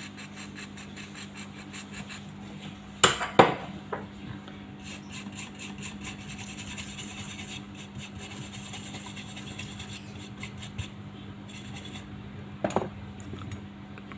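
Small tools scraping and rubbing on a phone circuit board, in quick fine strokes, with sharp clicks about three seconds in and again near the end, over a steady low hum.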